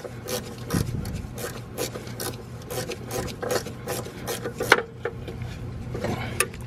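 Ratchet wrench worked in short strokes on the nut of a Mercedes Airmatic level sensor's link rod, rasping about four times a second. It stops about five seconds in.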